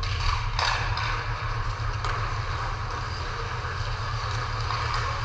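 Ice hockey rink during play: a steady low hum under an even scraping hiss from the ice, with a sharp knock about half a second in.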